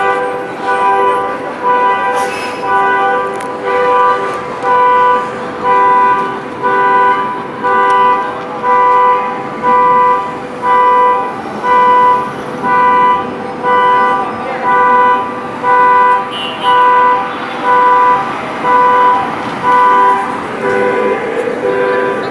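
Car alarm sounding the car's horn in a steady series of honks, a little more than one a second, switching to a faster, two-tone pattern near the end.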